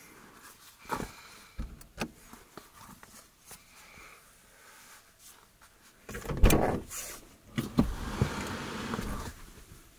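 Subaru driver's door unlatched and pushed open with a clunk about six seconds in, followed by rustling of clothing as a person climbs out. Before that, soft rustles and small clicks of clothing being pulled on inside the car.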